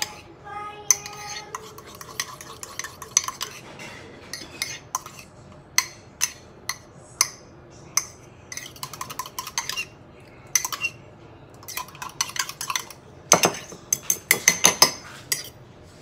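Metal fork clinking against the inside of ceramic mugs while beating raw egg, each tap ringing briefly. The taps are irregular, then quicken into a fast run of clinks near the end.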